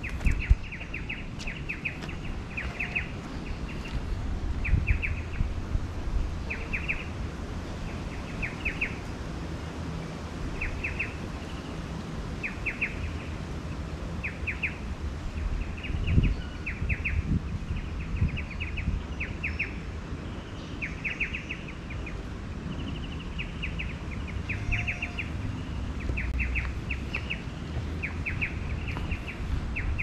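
Steady chirping from a creature in the forest: short groups of a few quick clicks, repeated about once a second. A low rumble runs underneath, with a thump about sixteen seconds in.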